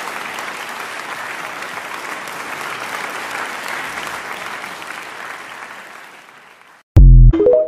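Crowd applause, steady and then fading out near the end. It is cut off by a very short, very loud electronic outro tone: low notes first, then a few quick higher notes, the TikTok end-screen sound.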